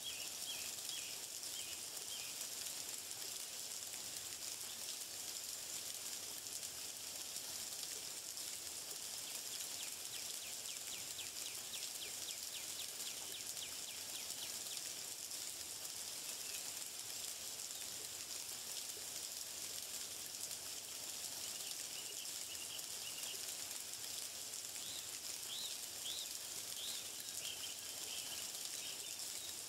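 Nature ambience: a steady high hiss, with small birds chirping at the start and again near the end and a fast ticking trill in the middle.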